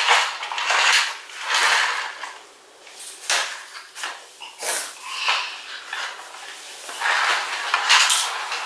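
Playmobil toy jet and its plastic tow vehicle and trailer being pushed across a tile floor: plastic wheels and hulls scraping and rattling in a string of uneven surges, the longest and loudest near the end.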